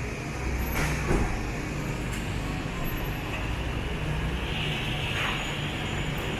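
Street traffic noise: a steady low rumble of passing vehicles, with one sharp knock about a second in.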